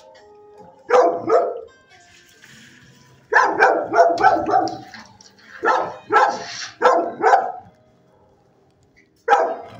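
Dogs barking in kennels, in bursts: one bark about a second in, a quick run of barks around three to five seconds, two more groups soon after, then a pause before barking starts again near the end.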